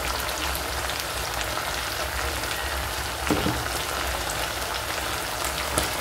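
Marinated chicken pieces frying in coconut oil in a pan over a low flame: a steady sizzle with fine crackling and spitting.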